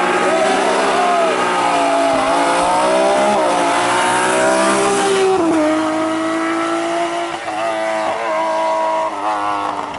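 Rally car's engine revving hard up a wet road, its pitch rising and falling with gear changes. The pitch drops about five and a half seconds in, then several quick rising revs follow near the end as it pulls away.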